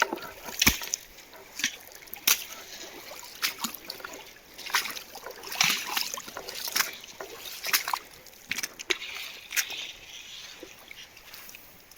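Irregular splashes and knocks, about one every second: someone wading through a shallow, stony river, with water sloshing around the feet.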